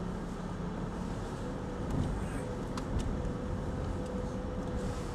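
Automatic Toyota Yaris rolling slowly, heard from inside the cabin: a steady low engine and road rumble, with a faint steady whine from about a second and a half in and a few light knocks around two and three seconds in.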